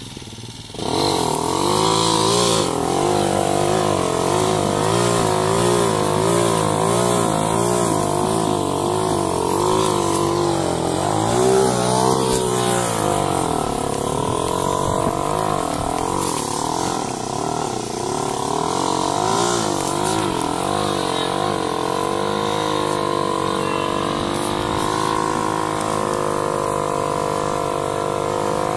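ATV engine running, its pitch wavering up and down with the throttle. It gets much louder about a second in, rises and falls in a rev about twelve seconds in, and settles to a steadier, higher pitch near the end.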